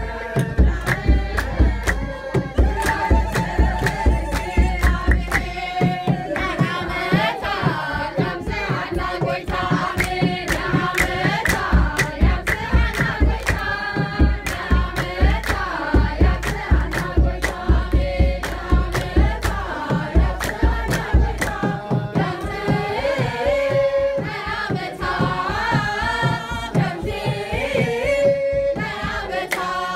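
A group of women singing an Ethiopian Orthodox mezmur hymn together, with steady rhythmic hand clapping keeping the beat.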